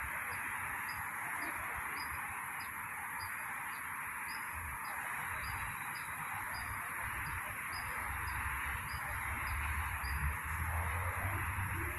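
Steady outdoor ambience: a constant hum with a high steady buzz over it and a faint high chirp repeating about twice a second. A low rumble builds near the end.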